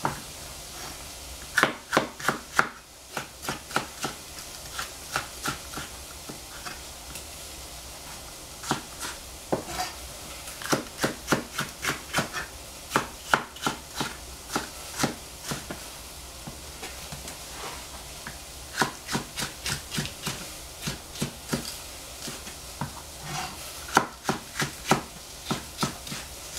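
Chef's knife slicing capsicum into strips on a plastic cutting board: quick runs of sharp knocks, with short pauses between the runs.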